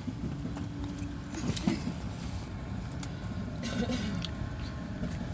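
Steady low rumble of a long BNSF freight train rolling past near its tail end, with a faint steady tone for about the first second and a half.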